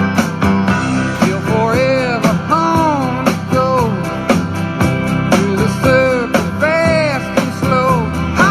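Rock music: guitars over a steady drum beat, with a lead line whose notes bend up and then back down in pitch.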